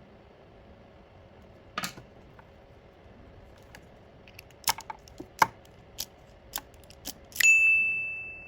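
Sharp metallic clicks and taps of small metal parts being handled. Near the end comes a sharp metal clink that rings on with a clear tone, fading over about a second.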